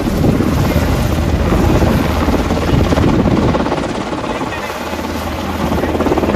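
Sikorsky H-60-type military helicopter flying low overhead, its rotor beating rapidly over the turbine noise. It is loudest in the first few seconds, eases off a little, then grows louder again near the end as it turns back toward the listener.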